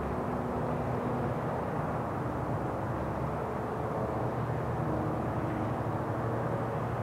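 Steady low mechanical drone, like a distant engine, with faint steady hum tones under a noisy rumble.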